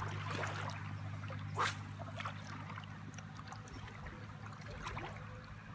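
Waders moving through shallow river water: sloshing, small splashes and trickles, one sharper splash about a second and a half in, over a steady low hum.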